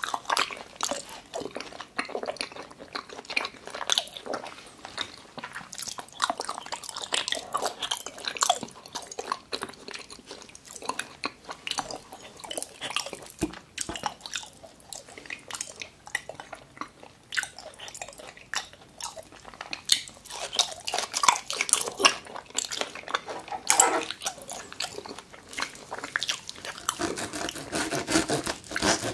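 Close-up chewing of raw tuna: wet, irregular smacking and squishing mouth sounds. Near the end, the soft raw tuna slab is pulled apart by hand.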